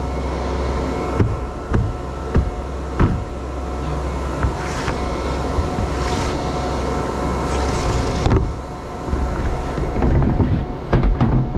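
Tractor engine idling steadily, with a few sharp knocks in the first few seconds and some brief rustling and handling sounds later on.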